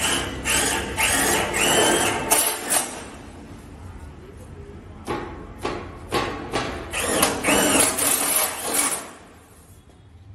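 Cordless drill running in short bursts against a steel door frame, mixed with sharp metallic knocks. There are two spells of drilling, one at the start and another from about five to nine seconds in.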